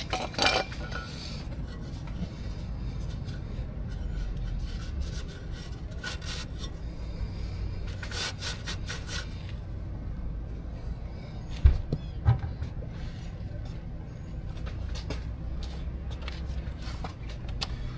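Scattered rustling and light clicks of hands moving tools and parts over a low steady rumble, with two sharp knocks about twelve seconds in.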